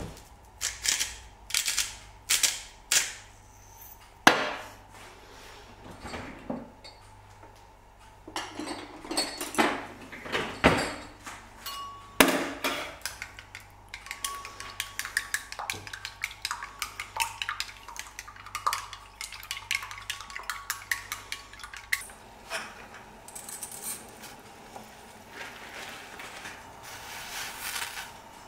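Kitchen utensil sounds: several sharp knocks and clinks of bottles and a spoon being handled, then chopsticks beating raw eggs in a glass bowl, a fast run of light clicks against the glass. About 22 seconds in it changes to chopsticks stirring noodles in a steel pot of boiling water, with a soft hiss of the boil.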